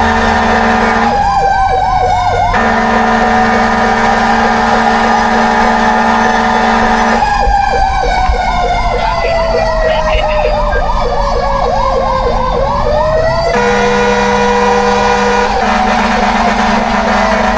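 Fire truck sirens sounding: a steady siren tone throughout, broken twice by a fast yelp, about four rises and falls a second. The yelp comes briefly about a second in, then again from about seven seconds in for six seconds, with a slow wail falling beneath it.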